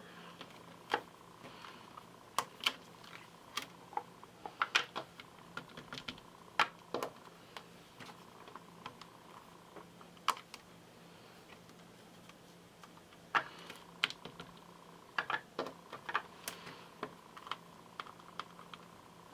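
Irregular light clicks and taps of hands working a hinged stamp-positioning tool: a clear stamp being set on the card and the clear plastic lid closed and pressed down. A faint steady hum runs underneath.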